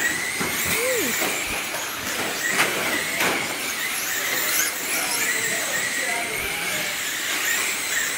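Radio-controlled dirt oval race cars running laps, their motors giving a high whine that wavers up and down in pitch as the cars speed up and slow for the turns. A few sharp knocks come about two and a half and three seconds in.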